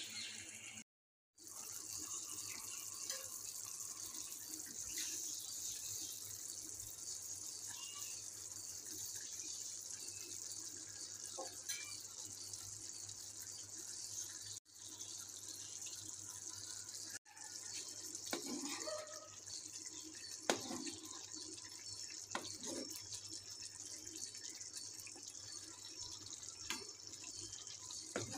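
Chicken pieces frying in oil in a pan: a steady sizzling hiss with faint crackles. It cuts out briefly about a second in and twice around the middle, and a few louder knocks or scrapes come in the second half.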